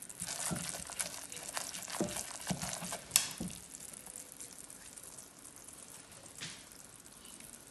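Hot caramel sizzling and crackling, with sharp clicks like a spoon against metal. The crackling is busiest for about three and a half seconds, then dies down to a faint hiss with one more soft crackle near the end.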